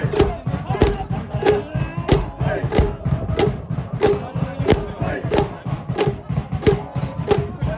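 High school baseball cheering section chanting in unison to a steady drum beat, about three beats every two seconds.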